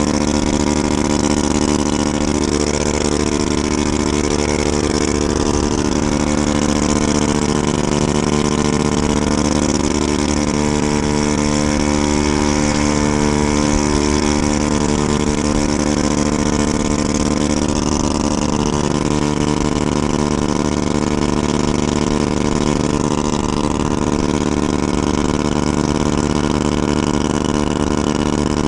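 Honda Ruckus scooter engine running at a steady cruising speed, with wind rushing over the microphone.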